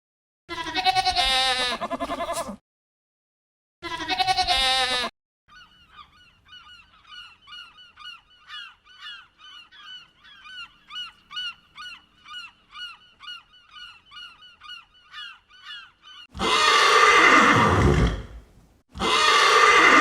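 A series of animal calls: two loud calls with a wavering pitch, then about ten seconds of rapid, faint high chirps, then two loud harsh calls near the end.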